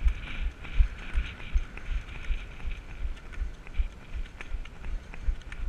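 Steady rhythmic running thuds, about two and a half a second, from a runner moving on crutches, over a steady background hiss.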